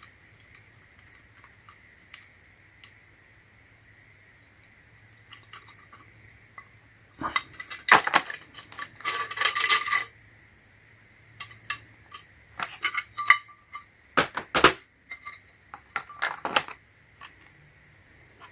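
AKKO Matcha Green mechanical keyboard switches clicking and clattering as they are handled and pushed into a hot-swap PC board. There is a busy patch of clatter partway through, then scattered clicks.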